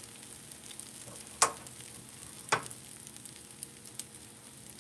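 Food sizzling on the stove: a steady faint crackle with two sharper pops, about a second and a half in and again a second later.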